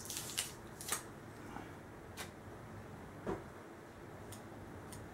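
Tape being peeled off a pencil and small grip pieces handled: a few sharp crackling rustles in the first second, then scattered light clicks and one soft knock a little past three seconds in.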